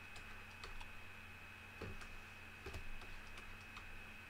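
Faint, irregular light taps and clicks of a stylus on a writing surface during handwriting, about a dozen scattered ticks, over a faint steady electrical hum.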